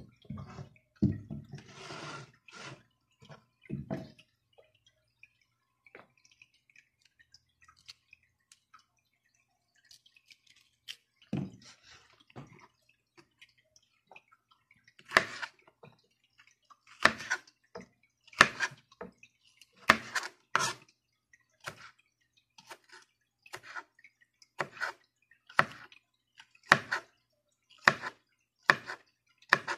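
Knife chopping a red onion on a plastic cutting board: sharp taps of the blade hitting the board, about one a second through the second half, after a few scattered knocks and rustles of handling.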